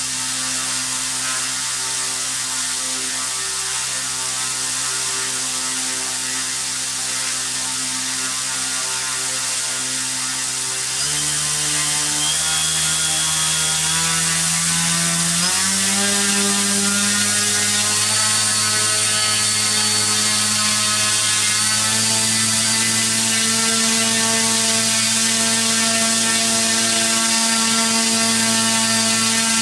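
A2212/13T 1000KV brushless outrunner motor spinning a 10x4.5 inch propeller, a steady whine and hum that steps up in pitch and gets a little louder twice, about eleven and fifteen seconds in, as the speed is raised. The propeller mounts run a bit rough and cause vibrations.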